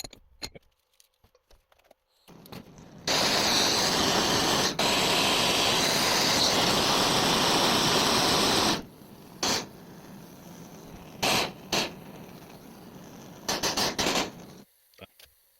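Gas blowtorch flame hissing steadily and loudly for several seconds while heating a cracked brass valve body for soldering. It then burns at a lower, quieter hiss with a few brief flares before it is shut off near the end.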